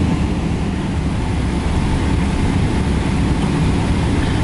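Steady, loud low rumble in the passenger cabin of a Boeing 777-300ER on the ground: its GE90 engines and air systems running, with no distinct events.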